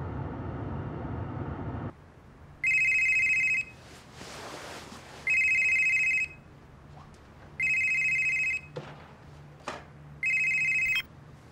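Cordless home telephone ringing with an electronic tone: four rings of about a second each, the last cut short as it is picked up. Before the ringing, about two seconds of steady low rumble inside a moving car.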